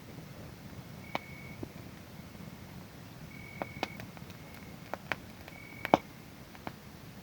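Wood fire crackling, with scattered sharp pops (the loudest about six seconds in) over a low steady noise, and a cricket calling in four short, steady, high-pitched trills.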